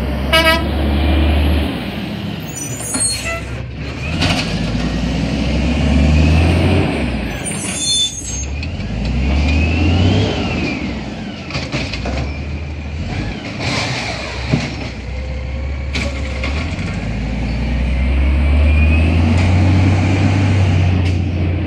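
Diesel garbage truck pulling along the street, its engine revving up and dropping back several times, with sharp air-brake hisses and brief whining glides.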